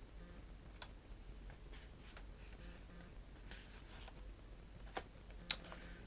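Faint handling sounds of packaging and a book: light rustling and a few sharp clicks, the loudest about five and a half seconds in.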